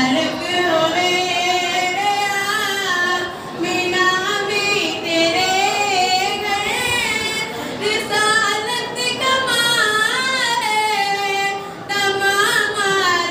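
A woman singing a naat (Urdu devotional song) solo into a microphone, with no instruments: long, ornamented held notes that waver and bend, broken by two short breaths between phrases.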